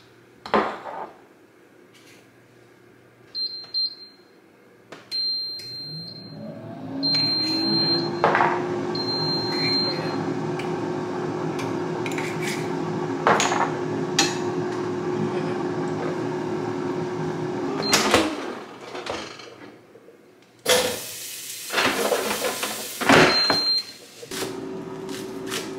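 Countertop air fryer beeping as it is set, then its fan motor spinning up with a rising hum, running steadily for about ten seconds and winding down. Near the end it beeps once more and the fan starts again, with a few scattered clicks and knocks of handling along the way.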